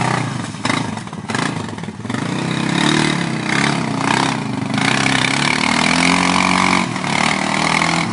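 ATV engine revving, its pitch rising and falling as the throttle is opened and eased off, with brief let-offs about one and two seconds in.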